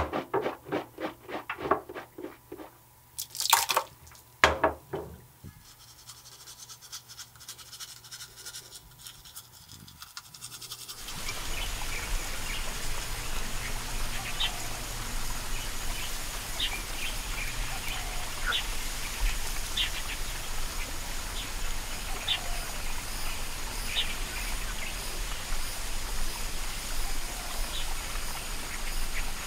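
Outdoor ambience of a flooded rice paddy that sets in suddenly about eleven seconds in: a steady noise with a low hum and short, scattered animal calls. Before it there is a quick run of sharp rhythmic clicks and then two loud sharp sounds.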